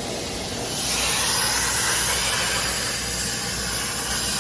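Plasma cutting torch (Eastwood Versa Cut 40 on a CNC table) hissing as it fires up about a second in and cuts 14-gauge steel, a steady loud rush of air over a low hum.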